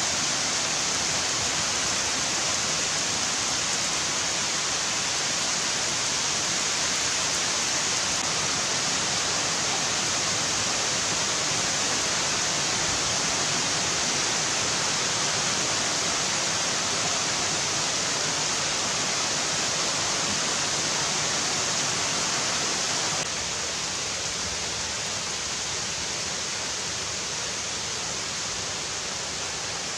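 Heavy rain pouring down through the trees of a forest canopy, a dense, steady hiss that turns a little quieter about three-quarters of the way through.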